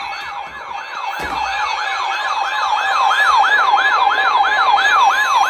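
Electronic siren in a fast yelp pattern, each sweep rising and then dropping sharply, about three a second over a steady tone, getting louder as it goes.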